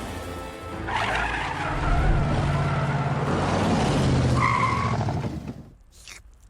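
A vehicle's engine running and its tyres skidding and screeching, with music underneath; it cuts off about five and a half seconds in.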